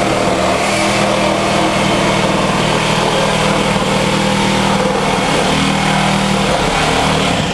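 A motor or small engine running loud and steady, with an even hum that does not change in speed.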